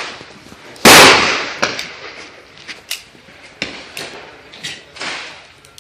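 .357 Magnum revolver fired once about a second in: a very loud sharp shot with a long echoing tail. Several much fainter sharp cracks follow at irregular intervals.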